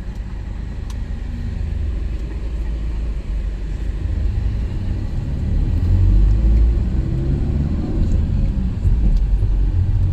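Low, steady rumble of a moving vehicle's engine and road noise heard from inside, growing louder about halfway through.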